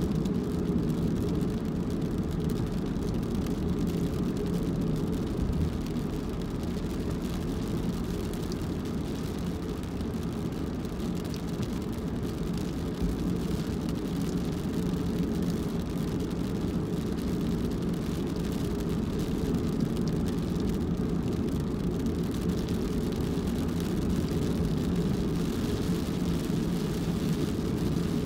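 Steady low rumble of a car's engine and tyres while driving, even in level throughout.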